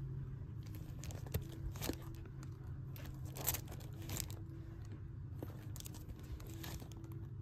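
Plastic comic-book bags rustling and crinkling as bagged comics are flipped through one by one in a box, a string of short brushing sounds over a low steady hum.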